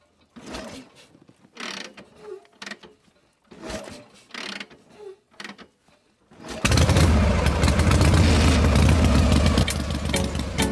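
A few short scrapes and taps as the miniature model engine is handled. About six and a half seconds in, its small motor starts and then runs loudly and steadily, driving the string belts of the mini mills.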